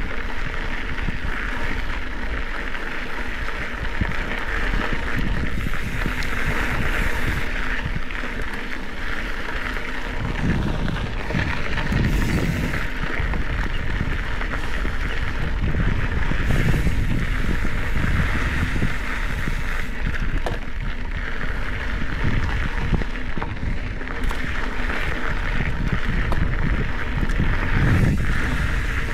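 Specialized Epic 8 Evo mountain bike riding along dirt singletrack: steady tyre and drivetrain noise, with wind rumbling on the camera microphone in gusts from about a third of the way in.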